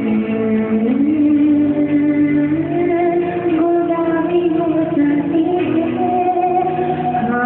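A young woman singing a song into a microphone over backing music, holding long notes that slide from one pitch to the next.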